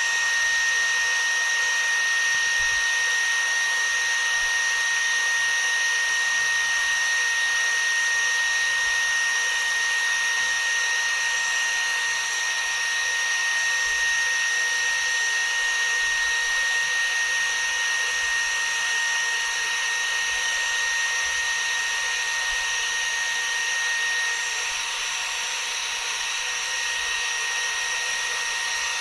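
Xiaomi Shunzao Z1 cordless stick vacuum cleaner running steadily on battery at low speed: a constant high motor whine over a rush of air. The whine eases slightly near the end.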